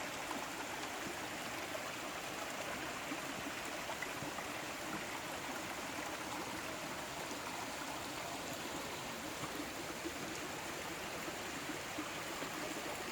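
Waterfall and its stream rushing steadily: an even, unbroken sound of falling and flowing water.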